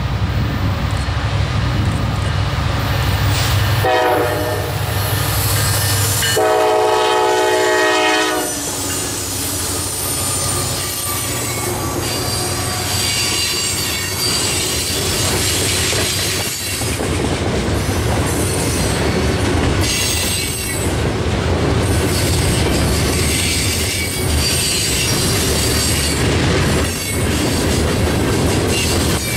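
A train passing close by: the locomotive rumbles, sounds its horn briefly about four seconds in, then gives a longer horn blast a couple of seconds later. The cars then roll past with steady rail clicks and high wheel squeal.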